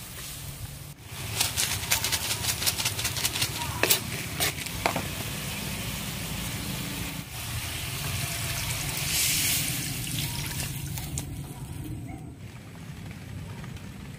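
Water poured from a bowl into a wok of fried ingredients, a splashing pour that swells in the middle and fades. A run of sharp clicks and knocks comes in the first few seconds.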